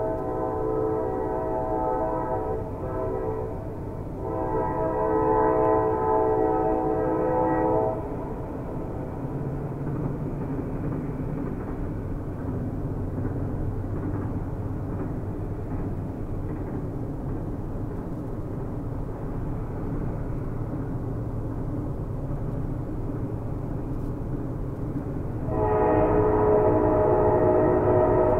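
Amtrak train's horn sounding a chord of several notes in long blasts: one ending about two and a half seconds in, another from about four to eight seconds, and a third starting near the end. Between them the steady rumble of the train running on the rails, heard from inside the passenger car.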